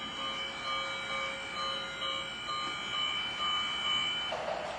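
Model electric train running on the layout track, with a steady running noise from the locomotive and wheels. Steady high tones sound over it, one of them beeping on and off about twice a second. About four seconds in, the tones stop and a louder rushing rumble takes over.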